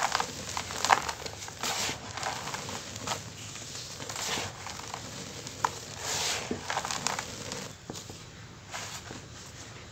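Bare hands crushing and crumbling clumps of dry cement into loose powder: an irregular gritty crunching and rustling with occasional sharp crackles, quieter near the end.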